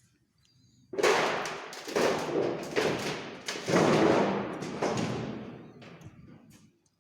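A run of loud thuds and bangs, about five heavy hits over some four seconds, each followed by a rushing noisy tail, dying away near the end.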